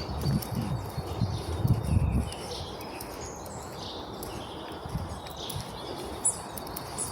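Forest birds chirping and singing over a steady outdoor hiss, with a few soft low thumps in the first two seconds.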